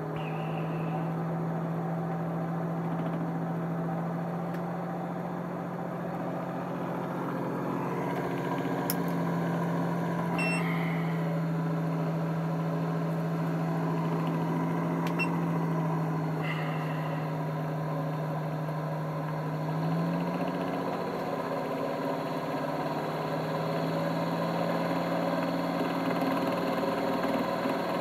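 Bedini-style pulse motor spinning the AC generator it drives, giving a steady electric hum whose pitch shifts slightly a few times, around a third of the way in and again near two-thirds. A few faint clicks come through over it.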